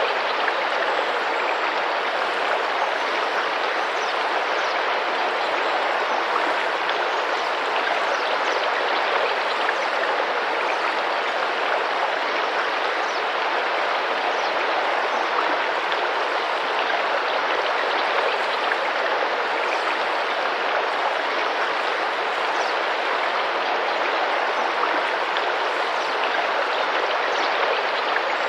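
River water flowing and splashing, a steady, even rush.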